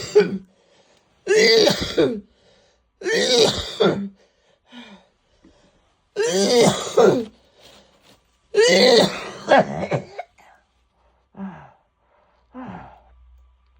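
A woman coughing in a fit of five loud coughing bouts, two to three seconds apart, then weaker coughs near the end. It is the cough of bronchitis, which she calls acute.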